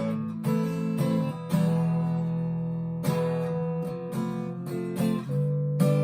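Harley Benton TE-90 FLT electric guitar with Filtertron-style pickups, strumming sustained chords through a Fender Mustang LT25 amp at its raw, unprocessed default setting, with the guitar's volume and tone full up. A new chord rings out every second or two.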